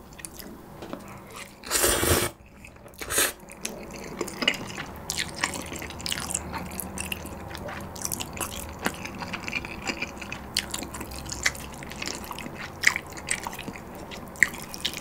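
Ramen noodles slurped into the mouth in a loud burst about two seconds in, with a shorter slurp a second later, then close-miked chewing: many small wet clicks and smacks of a full mouth.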